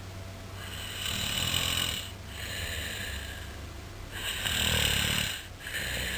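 A sleeping man snoring: two loud snores about three seconds apart, each followed by a quieter, breathier sound.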